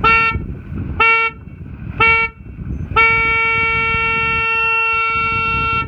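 Sailboat race starting horn counting down the last seconds, three short blasts a second apart, then one long blast that marks the start of the race.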